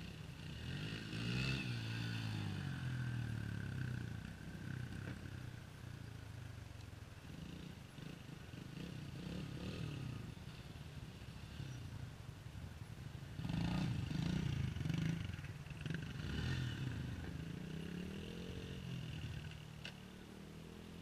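Small dirt bike engines running and revving, their pitch rising and falling as the riders work the throttle. They grow louder for a couple of seconds in the middle.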